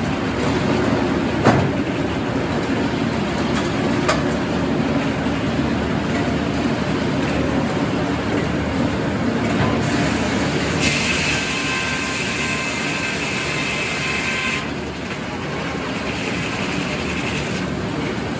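Circular sawmill running: the steady rumble of the headsaw and the log carriage moving on its track, with a few sharp knocks in the first few seconds. A higher whine joins for about four seconds past the middle, then drops away.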